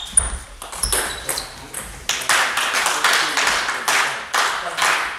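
Celluloid-plastic table tennis ball struck back and forth in a fast doubles rally: sharp pings of ball on bat rubber and table, several within the first two seconds. From about two seconds in, louder swells of noise from the players and spectators follow as the point ends.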